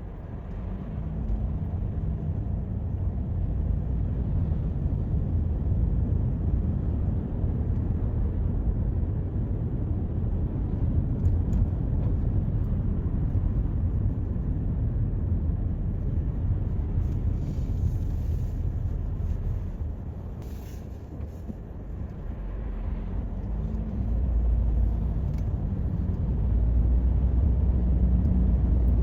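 Toyota Corolla driving on a city road: a steady low rumble of engine and tyre noise. It eases off about two-thirds of the way through, then builds again as the car picks up speed.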